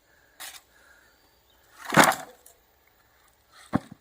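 Firewood sticks and branches being handled: a short rustle early on, a loud crash of sticks about halfway through, and a sharp wooden knock near the end. Crickets chirp faintly in the background.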